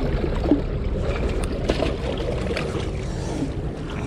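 Steady, rough rumble of sea water washing around breakwater rocks, with rustling, scrapes and light knocks from hands and clothing moving against the camera.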